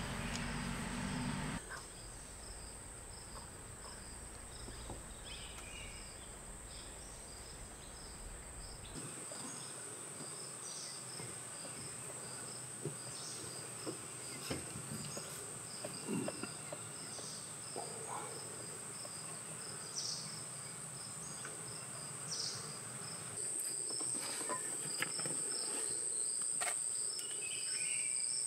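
Forest insect chorus: a steady high-pitched insect drone with a second insect chirping in a regular pulse about twice a second, and a few short sharp calls scattered through. A low rumble underneath stops abruptly about a third of the way in.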